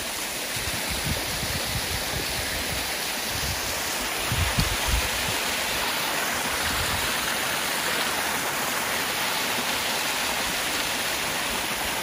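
Waterfall rushing, a steady even noise of falling water, with a brief low rumble about four to five seconds in.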